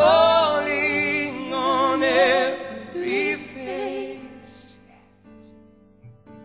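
Praise-and-worship music: a voice sings long held lines with a wide vibrato over sustained chords. The singing fades about four and a half seconds in, leaving the quieter held chords.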